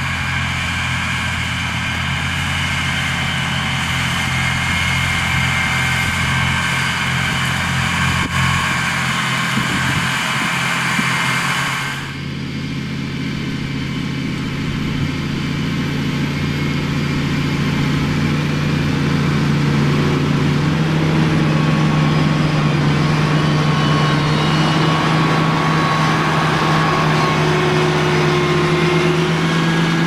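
John Deere 8320RT tracked tractor's 9-litre six-cylinder PowerTech diesel running steadily under load while pulling a plough through the field. The sound changes abruptly about twelve seconds in, then grows steadily louder as the tractor approaches.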